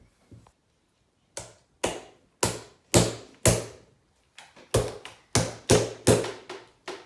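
A series of about a dozen sharp taps at an uneven pace, loudest around the middle.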